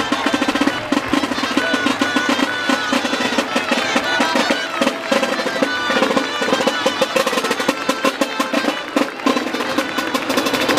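Traditional street band of reedy Navarrese gaitas (shawms) playing a dance tune over a steady beat of drums.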